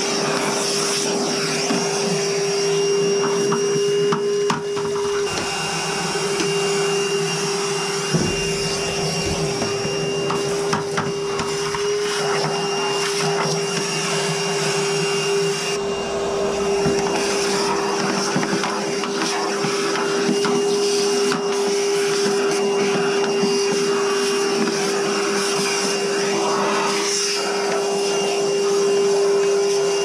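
Small shop vacuum running steadily, sucking dust out of a power-vent gas water heater: a rush of air over a steady motor hum.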